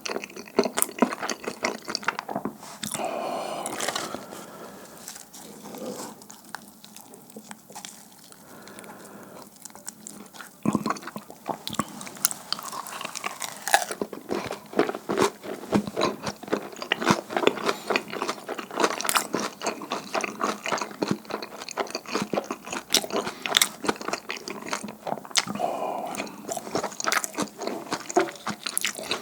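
Close-miked chewing of sticky, chewy dumpling hotteok: rapid wet clicks and smacks of the mouth working the dough, with a few crunchy bites. There is a quieter stretch about a third of the way in, then steady chewing to the end.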